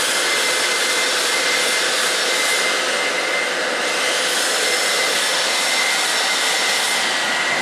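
Steady loud rushing of a fan or blower, with a thin high whine held over it.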